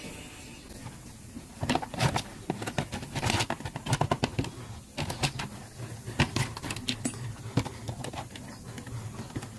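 Clear plastic blister pack of a new scooter brake shoe set being torn open and handled: a run of sharp, irregular crackles and snaps that starts about a second and a half in.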